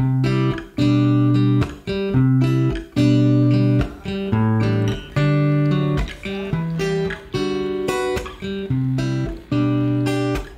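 Background music of strummed acoustic guitar, chords struck in a steady, even rhythm.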